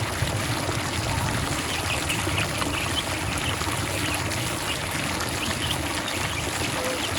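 Steady rush of running water, with faint short high-pitched ticks scattered through it.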